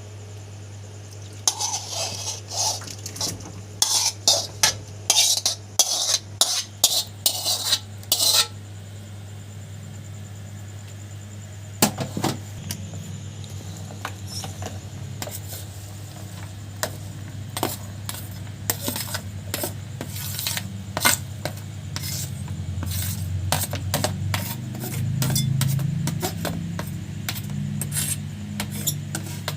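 Kitchen utensils and dishes clinking and scraping, a busy run of sharp knocks for the first several seconds, then scattered knocks from about twelve seconds in, over a steady low hum.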